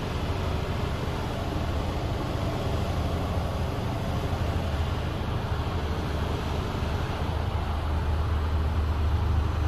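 Mercedes Actros 1842's 12.8-litre straight-six diesel idling steadily in neutral, heard as a low rumble from inside the cab, growing a little louder near the end.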